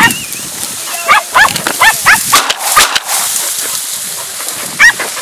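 Podenco Andaluz hunting dogs yelping in a quick series of short, high calls about three a second, as they chase rabbits through the reeds, with a few sharp knocks around the middle.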